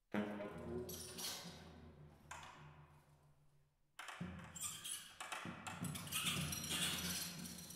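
Improvised music for saxophone and drum kit: clattering percussion strikes over low held tones. The sound starts suddenly, fades over a few seconds, then comes in loudly again about four seconds in.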